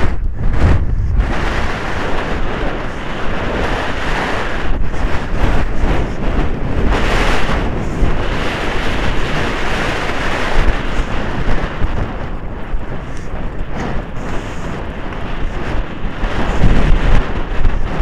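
Heavy wind buffeting on a helmet-mounted camera's microphone while riding a polo pony at speed, a dense rumbling roar that swells and dips.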